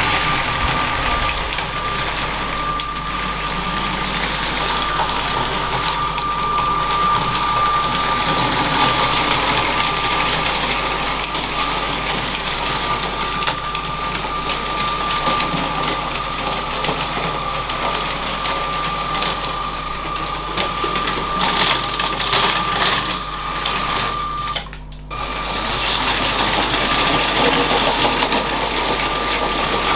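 LEGO train's small electric motor running with a steady high whine, and plastic wheels clicking over the track joints. The sound drops out for a moment about 25 seconds in.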